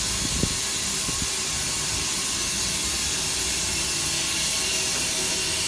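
Water running continuously, a steady, loud hiss that does not change: water that has been left running non-stop.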